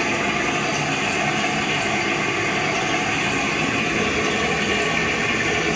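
The privacy-sound function of a Japanese electronic bidet toilet seat, playing a recorded running-water sound: a steady, unbroken rush of water meant to mask bodily noises such as flatulence.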